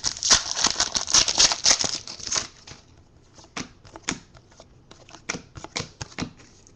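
Foil trading-card pack wrapper rustling and being torn open for about the first two seconds, followed by a string of light clicks and ticks of cardboard cards being handled and flicked through.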